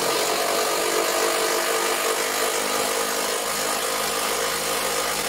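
Power drill running steadily under load, driving a bolt in.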